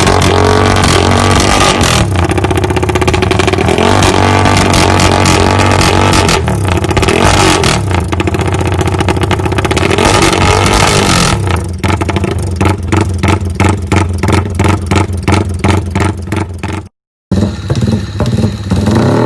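Yamaha Y15ZR's single-cylinder 150cc four-stroke motorcycle engine revving loudly, pitch rising and falling. Past the middle it settles into quick, even pulses, about two or three a second, cut off briefly near the end before revving resumes.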